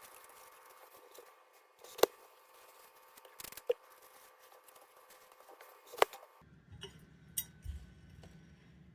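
Handling noise from a ceiling fan being worked on: a few sharp clicks and knocks, spaced a second or more apart, the loudest about two and six seconds in.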